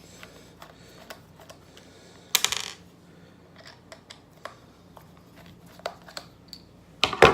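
Small metal screws and parts of an Andis Pro Alloy hair clipper being handled during disassembly: light clicks and ticks, with two louder metallic clatters, one about two and a half seconds in and one near the end, as parts are set down on a hard surface.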